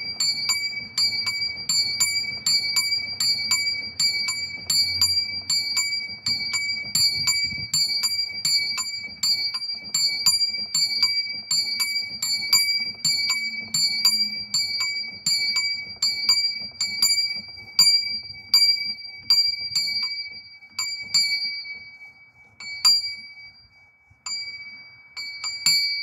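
Small swinging bell ringing, its clapper striking about twice a second with a bright, sustained ring. Near the end the strikes thin out to a few single strokes as the bell swings down.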